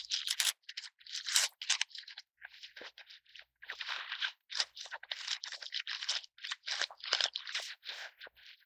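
Thin white wrapping paper crinkling and rustling as it is unfolded and pulled open by hand, a quick, irregular run of crackles.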